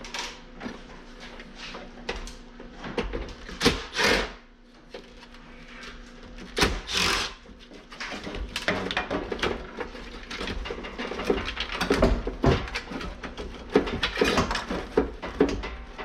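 Air-conditioner casing and parts being pulled apart and handled: irregular metallic knocks, clanks and scraping. There are a few longer scrapes about 4 and 7 seconds in, and busier clattering after that.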